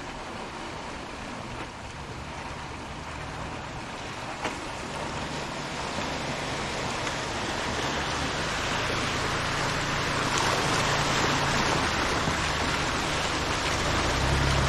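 Off-road SUV engine running low and steady under a broad rushing noise of tyres, wind or water that grows steadily louder as the vehicle moves along the trail.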